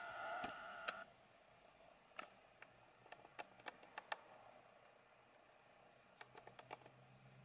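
Near silence: faint room tone with a steady electrical-sounding buzz that cuts off about a second in, then a scatter of faint sharp ticks.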